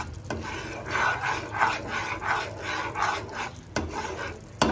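A steel spatula stirs and scrapes bubbling jaggery syrup around a nonstick kadhai in quick, regular strokes, about three a second. There are a few sharp clicks of metal against the pan, one near the start and one near the end.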